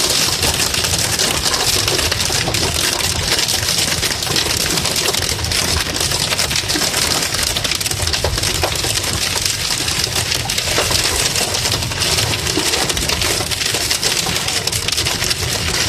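Hail hitting a car's roof and windshield, heard from inside the car: a dense, steady clatter of countless small hard impacts.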